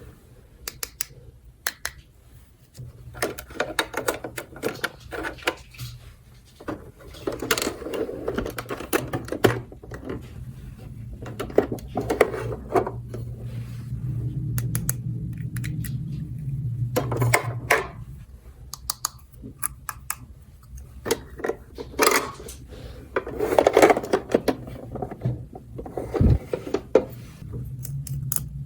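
Small plastic toy pieces being handled, clicking and clattering against each other in irregular bursts, with a low steady hum for several seconds in the middle.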